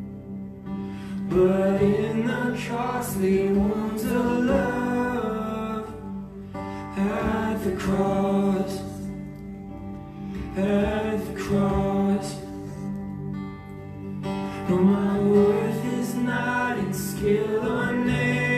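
Live worship song: male and female voices sing slow phrases over strummed acoustic guitar and cello, with short pauses between the lines.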